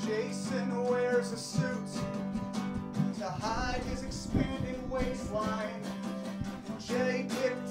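Two guitars playing live: an acoustic guitar strumming chords under an electric guitar playing a melodic lead line.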